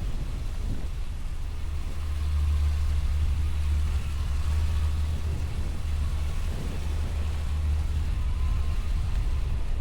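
Wind buffeting the microphone as a steady low rumble, over the hiss of surf on a beach.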